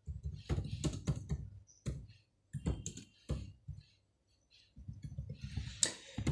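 Typing on a computer keyboard: irregular key clicks in short runs, with a pause of about a second a little past the middle.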